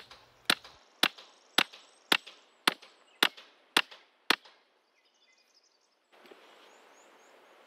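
Blade striking wood: nine sharp chopping strikes about half a second apart as the end of a wooden stick is cut off, stopping after about four seconds.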